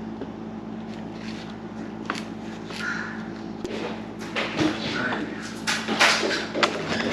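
Handling sounds while food is packed: scattered light clicks and knocks, growing more frequent in the second half, over a steady low hum.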